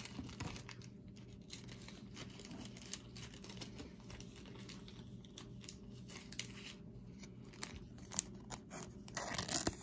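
Soft rustling and light clicks of trading cards and a thin plastic card sleeve being handled. Near the end comes a louder crinkle as the card is slipped into the sleeve.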